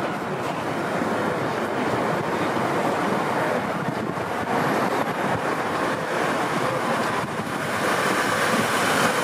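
Steady city street traffic noise, a continuous haze of engine and tyre sound, growing a little louder near the end.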